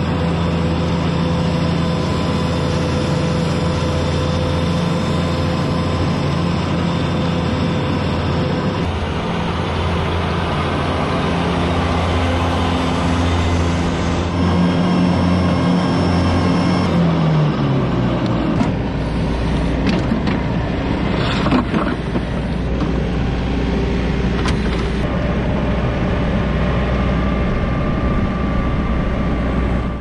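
John Deere 1600 wide-area mower's engine running steadily under load. About seventeen seconds in, its pitch slides down and it carries on at a lower, steady hum, with a few short clicks and knocks.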